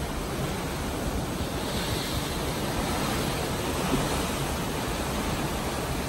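Sea water rushing and foaming along the hull of a moving ship, a steady even rush with some wind.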